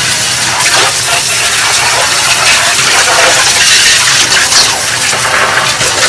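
Water from a garden hose splashing into the dirty water pooled in a top-loading washing machine's plastic tub as a cloth is rinsed under the stream: a loud, steady rush.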